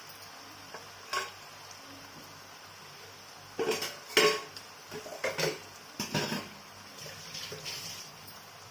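Ghee sizzling steadily around a lump of date-barfi dough in a nonstick frying pan, broken by several short bursts of utensils clattering against cookware, the loudest about four seconds in.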